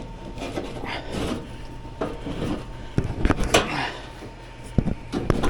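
Replacement blower motor being slid into place in an air handler's metal housing: scraping and rubbing with several sharp knocks, a cluster about three seconds in and more near the end.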